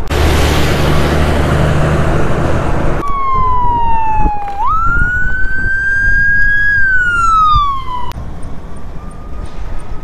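A tractor-trailer passing close, a loud rush of wind and road noise over a low engine drone, which cuts off abruptly about three seconds in. A fire truck's siren then wails: falling, jumping up, holding high, then sliding down again, and fading to a faint steady tone near the end.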